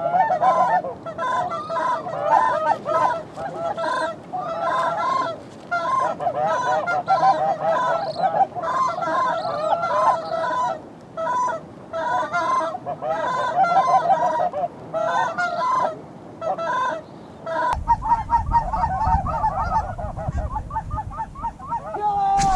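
Canada geese honking and clucking in quick, overlapping calls as a flock comes in over the decoys. Near the end a low rumble joins the calling.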